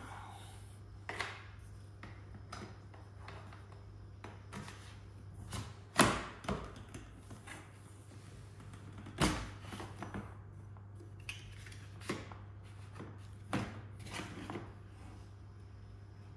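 Plastic side pieces and steel tube bars of a Hozelock hose reel frame knocking and clicking together as they are pushed and fitted by hand: scattered short knocks, the loudest about six and nine seconds in, over a steady low hum.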